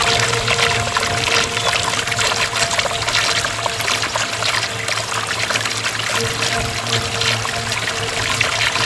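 Running water trickling and splashing, a dense splashy rush full of small ticks, with a faint steady music drone underneath; it cuts off abruptly near the end.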